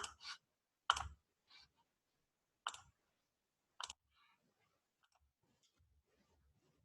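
A few sharp clicks: three distinct ones over about three seconds, with a fainter tick between the first two. Then only the faintest ticks follow.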